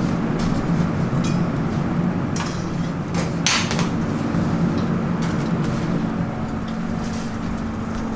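Steady hum of kitchen equipment with scattered light clicks and knocks of a metal spoon against food containers as filling is scooped and spread, one sharper click about three and a half seconds in.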